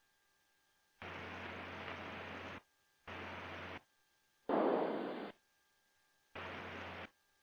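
Aircraft intercom opening and closing four times, each opening letting through a short block of hiss from the cockpit noise, with near silence between; the third opening, about halfway through, is the loudest.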